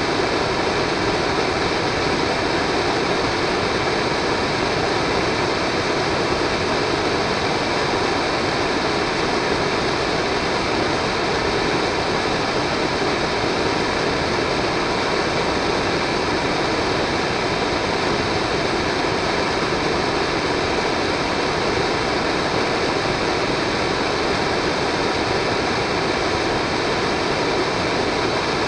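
Steady rushing noise of a solid-fuel model rocket engine's exhaust, even throughout with no beat or pause.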